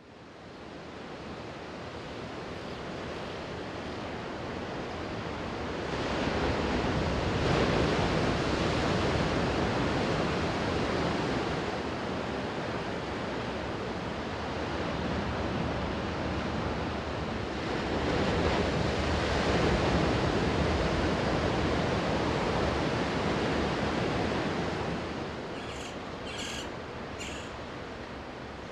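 Sea surf washing onto a beach: a steady rush of waves that swells louder twice, with a few short, high sounds near the end.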